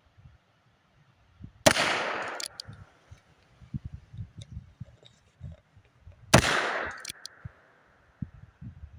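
Two .22 LR shots from a Heritage Rough Rider–style single-action revolver, about four and a half seconds apart, each a sharp crack with a short fading echo. Wind buffets the microphone in between.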